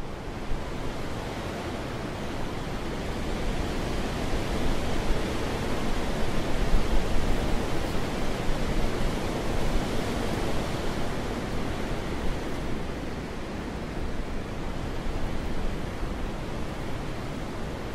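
Wind blowing in a long gust, a steady rushing that swells to its strongest about midway and then eases off again.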